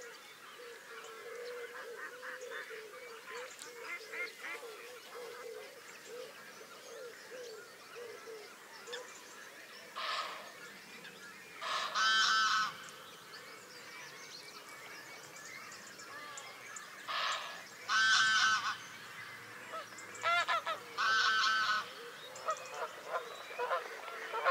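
Geese honking: a few loud calls at about ten and twelve seconds, then a louder run from about seventeen to twenty-two seconds, over a constant background of fainter waterbird calls. A faint steady hum runs under the first third.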